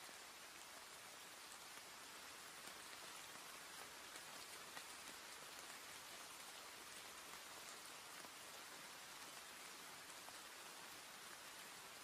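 Faint, steady rain falling, an even hiss of many small drops pattering.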